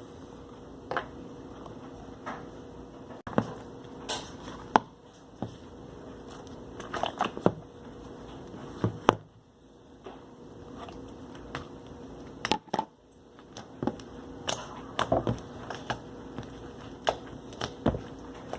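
Soft, sticky clay slime being kneaded and squished by hand while activator is worked in, giving irregular short clicks and pops over a faint steady hum.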